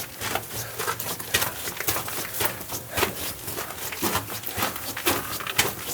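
Loose rock and dirt crumbling and trickling down in a mine working as it is prodded, a fast irregular patter of small clicks and ticks.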